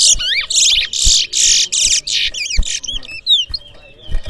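Caged towa-towa finch singing: rapid, high warbling song phrases for about three seconds, thinning to a few short chirps near the end, with a few small knocks underneath.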